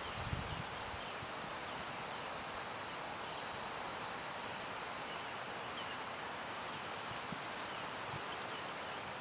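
Outdoor nature ambience: a steady even hiss, with a few faint, short, high bird chirps now and then.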